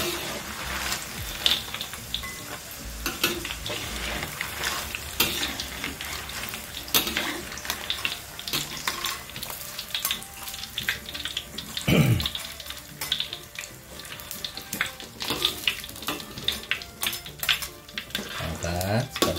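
Breadfruit sticks deep-frying in hot oil in a metal wok, sizzling and crackling, as a wire strainer and spatula scrape and clink against the wok while lifting out the sticks, now fried dry and crisp. One louder knock about twelve seconds in.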